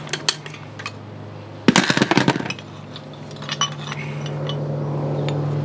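Steel hand tools and parts clinking and rattling as they are handled, with a quick run of clinks about two seconds in and a few single clicks either side, over a steady low hum.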